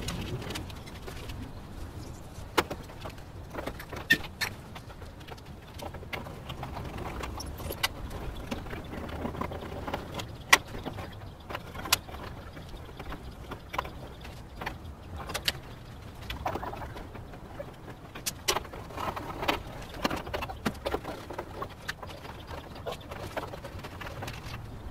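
Scattered small clicks and light metallic knocks as the control knobs are pulled off an old gas grill's stainless front panel, with a bird cooing softly in the background.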